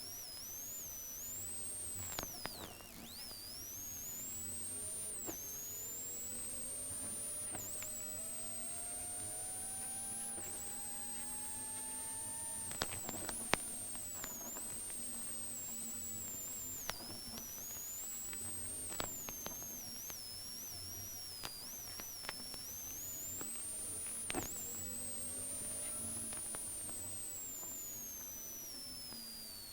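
Rally car engine recorded through a faulty GoPro microphone: it comes through mostly as a thin, high-pitched whine that rises and falls with the revs. Faint engine tones climb underneath and drop back at gear changes, with scattered sharp clicks.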